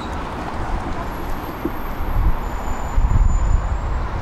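Outdoor street ambience: a steady hum of road traffic, with wind buffeting the microphone in an uneven low rumble from about halfway through.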